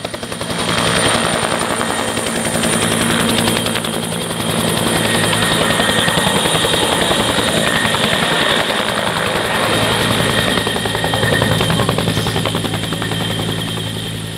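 Bell 212 helicopter hovering low and then lifting away, its twin turboshaft engines and two-bladed main rotor running steadily at flight power.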